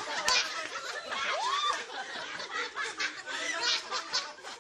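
Several people chatting over one another with bursts of laughter.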